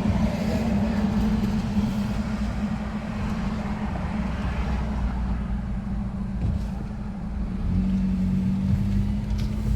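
Car engine and road noise heard from inside the cabin while driving, a steady low drone that grows a little louder near the end.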